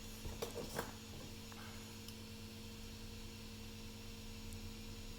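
A few soft clicks and rustles from small parts being handled, bunched about half a second to a second in, over a steady low electrical hum.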